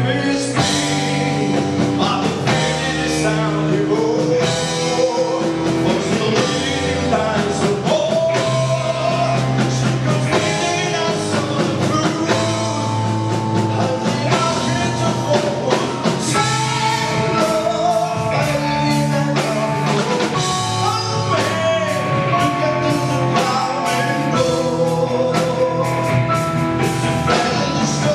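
Live rock band playing a song: a man sings lead over electric guitars and a drum kit.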